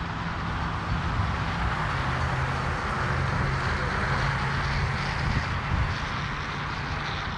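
Road traffic passing: tyre and engine noise swells to a peak about halfway through and then eases off, with a low engine hum that drops slightly in pitch about two seconds in.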